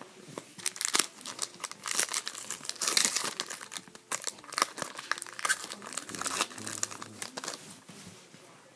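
Wrapper of a pack of hockey trading cards being torn open and crinkled by hand: a dense run of crackling and tearing that thins out near the end.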